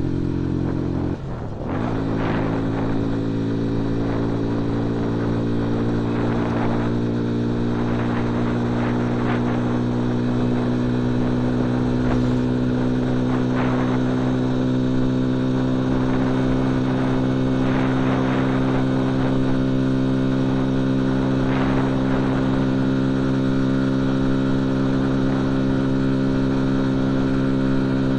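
Dayun Flasher 200 motorcycle engine running under way at cruising speed, heard from the rider's seat. It dips briefly about a second in, then holds a steady drone that rises slowly in pitch.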